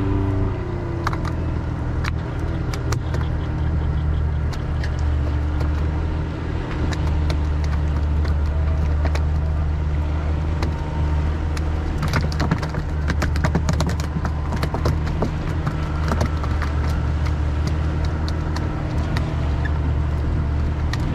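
Small fishing boat's motor running with a steady low drone while underway, with scattered knocks and clatter, thickest around the middle.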